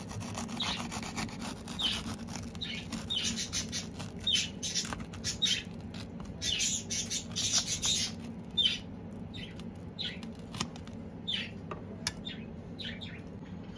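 A knife sawing through a crisp, grill-toasted sandwich on a steel plate: a run of short, irregular crunches as the blade cuts the toasted crust, thinning out near the end.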